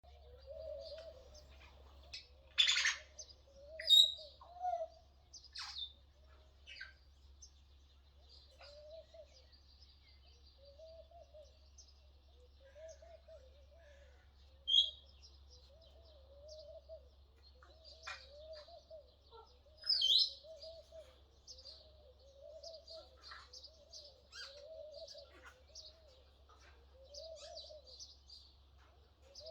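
Doves cooing in a soft low phrase repeated about once a second, over smaller birds chirping and twittering higher up. A few loud, sharp bird calls break in, about 3, 4, 15 and 20 seconds in.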